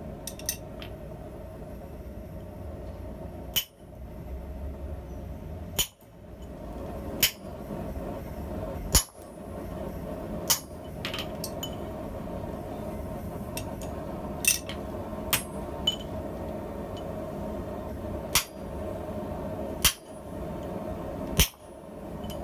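Hammer blows on a hand-held blacksmith's punch driving through a red-hot steel scissor blank on the anvil, punching the finger-ring hole: about a dozen sharp, ringing strikes spaced irregularly a second or a few seconds apart. A steady hum runs underneath.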